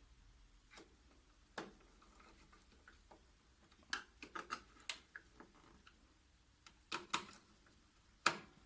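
Scattered sharp metal clicks and taps of small screws and a screwdriver as a copier's main motor is screwed onto its mounting, with the loudest click near the end.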